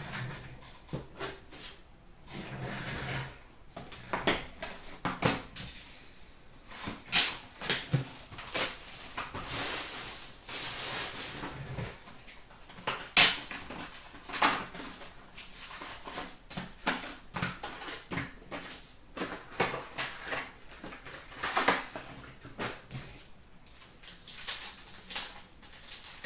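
A cardboard hobby box of trading cards being opened and its foil-wrapped packs handled: rustling and crinkling with irregular sharp clicks and taps, and one louder snap about halfway through.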